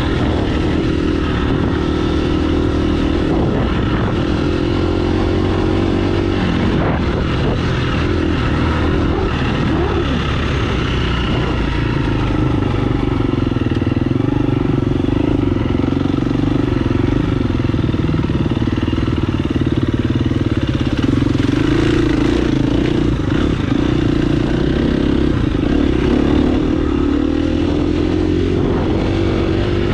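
Dirt bike engine running while riding a trail, its note wavering up and down with the throttle and never dropping out.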